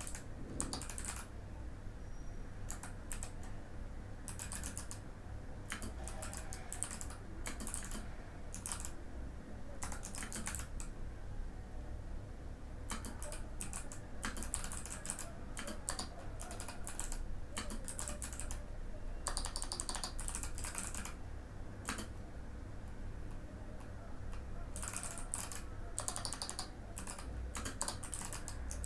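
Typing on a Mikit M65 mechanical keyboard with clicky Kailh Box White switches: rapid runs of keystroke clicks in bursts, broken by a few short pauses.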